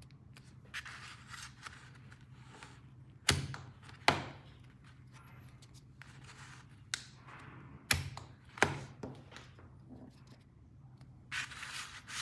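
Plastic toy pieces being handled during an unboxing: soft rustling and handling noise broken by four sharp plastic clicks or knocks in two pairs, each pair under a second apart.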